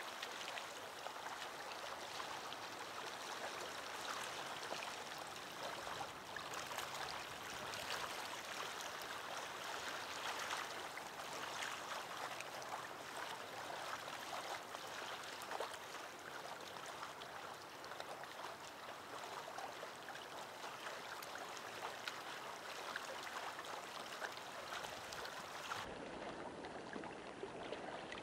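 Small waves lapping at a lake's shoreline, a steady soft wash of water.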